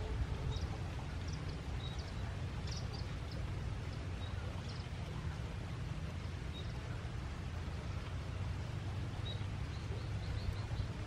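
Rural field ambience: small birds giving short high chirps here and there, with a quick run of chirps near the end, over a steady low rumble.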